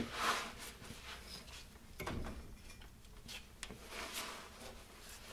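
A 1940 Chevrolet rear axle shaft being pushed inward toward the differential to free its C-clip: a few separate metal clunks and short scrapes, the strongest near the start and about two seconds in, with lighter ticks after.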